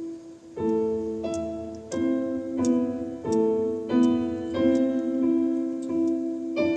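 Live instrumental music led by piano: chords struck about every two-thirds of a second over a held low note.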